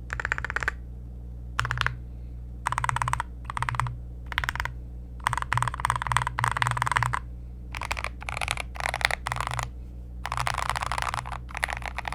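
Typing on a mechanical keyboard built with Gateron Black Ink V2 linear switches, Drop /dev/tty keycaps and a wooden case: runs of rapid keystroke clatter, each lasting about a second, broken by short pauses.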